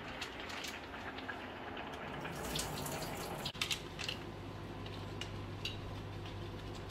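Rosé tteokbokki sauce simmering in a frying pan, a steady bubbling hiss. Plastic-bag crinkles and small ticks come in around the middle as the bag's contents are shaken into the pan.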